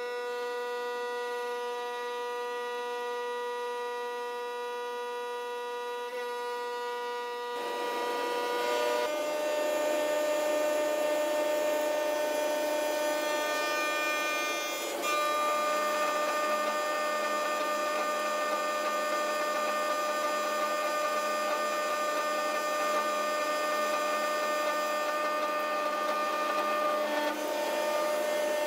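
Ringtech RTL-4000 CNC lathe with a rotating live tool cutting a part under flood coolant. A steady machine whine runs throughout, and about seven and a half seconds in a rushing noise of cutting and splashing coolant joins it. The whine steps to a new pitch twice as the finish pass runs.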